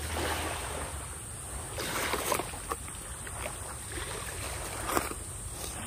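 Steady wash of waves and wind noise on the microphone, with a few light clicks and knocks.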